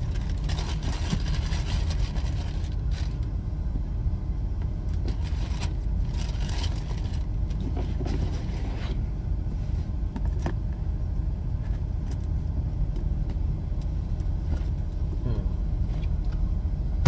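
Steady low rumble of a vehicle's interior, with tissue paper and cardboard crinkling as a shoe box is handled in the first few seconds and again around six to nine seconds in. A single sharp click about ten seconds in.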